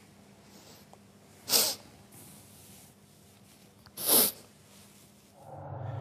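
A woman sniffing sharply through her nose twice, about two and a half seconds apart, tearful after telling of the deaths.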